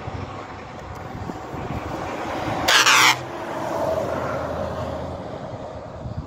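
Heavy truck driving past close by: engine and tyre noise swells as it approaches and eases off as it pulls away. A brief, very loud blast comes about halfway through.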